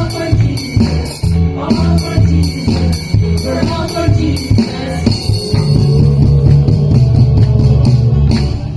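Church band music with singing over a steady beat and a strong bass line.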